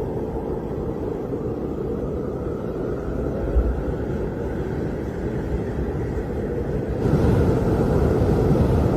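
Deep, steady rumbling roar of wind, as of an approaching tornado, swelling louder about seven seconds in.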